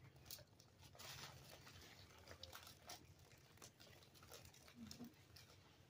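Near silence, with faint scattered clicks and soft rustling.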